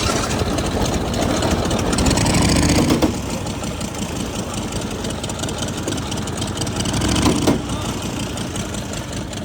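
Custom go-kart's small engine running as the kart moves off slowly, loudest in the first three seconds and then steady. The drive makes a noise called not a good noise, which the builders take to be the chain jumping off the small sprocket at the lower end of the jack shaft.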